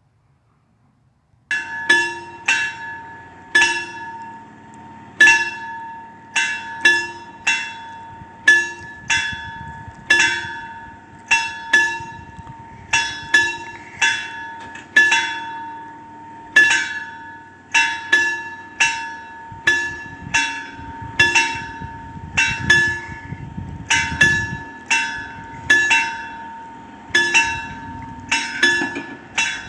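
FS64 level-crossing warning bells ringing, starting about a second and a half in, with repeated metallic strikes in an uneven rhythm of about two a second. They signal that a train is approaching and the crossing barriers are closing.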